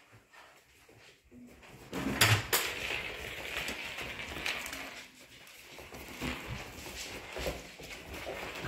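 Puppies playing on a laminate floor: a couple of sharp knocks about two seconds in, then scuffling and rustling with scattered clicks as they tug at a leash.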